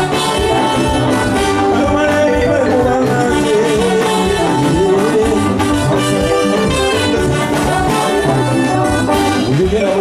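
Live band music with a brass section of trombones and trumpets playing over a steady beat.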